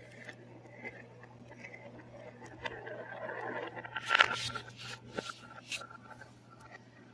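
A marble rolling along a marble run track with a building rumble, then a loud clatter about four seconds in, followed by a few lighter clicks.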